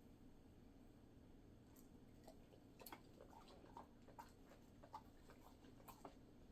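Near silence with faint, irregular clicks and smacks of a dog chewing, starting about two seconds in.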